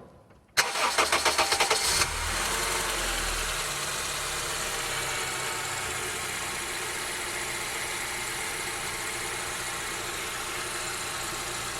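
Honda New Civic engine cranked by the starter for about a second and a half, catching and settling into a steady idle, run with its accessory belt removed. Without the belt the engine idles with no bearing-like noise, which points the fault to the power steering pump.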